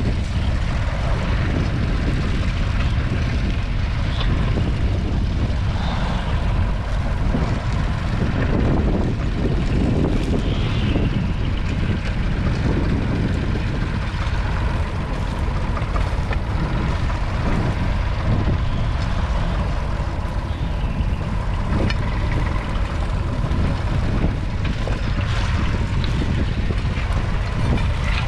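Nuffield 3/42's 2.8-litre three-cylinder diesel engine running steadily under load, pulling a two-furrow reversible plough through stubble.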